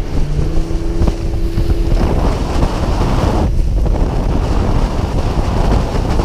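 Heavy wind buffeting the microphone over the rush of water as a small open skiff runs at speed across rough, choppy water. A faint steady hum sits under it for the first couple of seconds.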